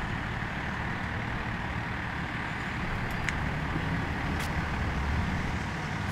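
Kaeser M114 portable diesel air compressor running steadily, a low engine rumble with a hiss over it. Two short sharp clicks come about three and four and a half seconds in.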